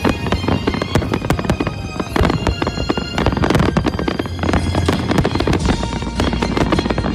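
A fireworks display: rapid, overlapping bangs and crackling bursts, with music playing at the same time.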